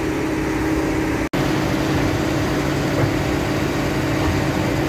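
Heavy machine engine running steadily at a constant pitch, with a momentary dropout in the sound about a second in.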